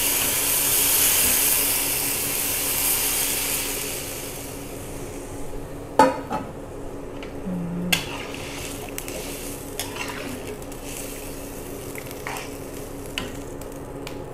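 Coconut milk poured into a hot wok, sizzling with a loud hiss that dies away over the first few seconds as the liquid covers the pan. Then a metal ladle stirs and knocks against the wok a few times.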